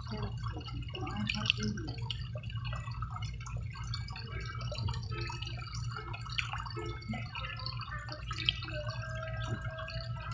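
Pond water dripping and lightly splashing in many small, scattered drops, over a steady low hum.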